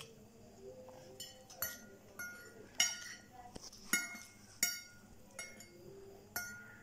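Metal fork clinking against a ceramic plate while picking up noodles: about eight sharp, irregular clinks, each with a short ring.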